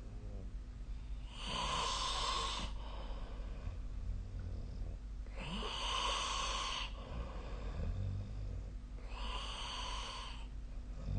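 A sleeping person snoring: three long, noisy snores about four seconds apart, each lasting over a second, with fainter low breaths between them.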